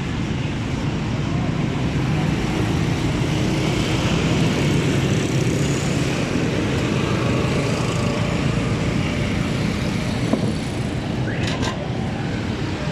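Steady rumble of busy road traffic with faint background voices. A brief rising high-pitched squeal comes about eleven seconds in.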